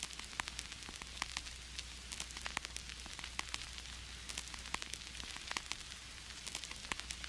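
Vinyl record surface noise: a steady hiss with frequent irregular crackles and pops, over a low hum.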